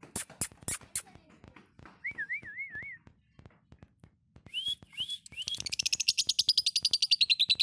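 Fischer's lovebird calling: a few sharp clicks, then a warbling whistle about two seconds in and a couple of rising chirps. From about five and a half seconds in comes a fast, continuous chattering trill, the loudest part, which is the long 'ngekek' song lovebird keepers prize.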